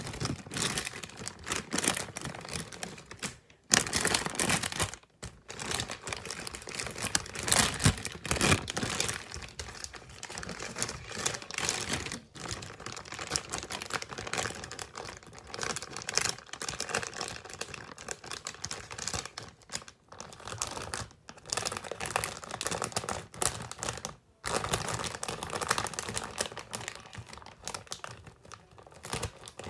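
Plastic squishy packaging crinkling and crackling as it is handled, in irregular bursts of small clicks and rustles, with a few brief pauses.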